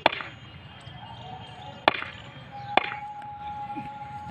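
Three sharp knocks over faint outdoor noise: the second comes about two seconds after the first, and the third about a second after that. A faint steady tone comes in about two-thirds of the way through.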